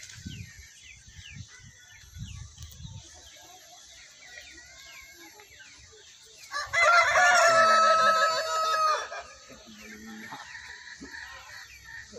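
A rooster crows once, a single long crow of about two and a half seconds starting a little past the middle.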